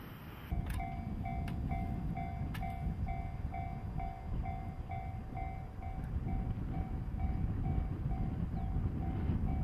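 Railway level-crossing warning bell ringing, an evenly repeated electronic ding about twice a second that starts about half a second in, signalling an approaching train. Under it is a steady low rumble of wind on the microphone.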